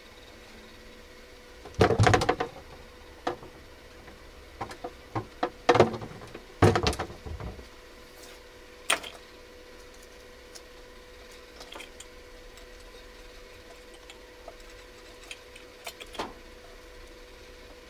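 Irregular clatter and knocks of a bowl, utensils and a pizza cutter being handled on a kitchen counter, loudest in two clusters about two and about six to seven seconds in, with lighter clicks after. A faint steady hum sits underneath.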